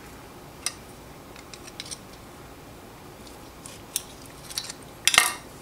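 Small metal clicks and light scrapes as the parts of a CRKT M16-12M tanto folding knife are worked apart by hand: a few scattered clicks, then a louder cluster of clicks about five seconds in.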